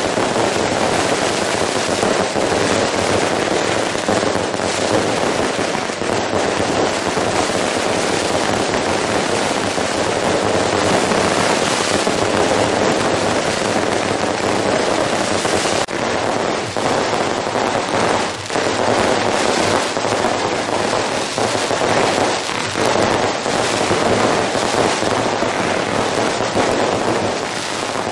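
Long strings of firecrackers going off in a continuous, dense, rapid crackle, set off as a firecracker salute for a temple procession.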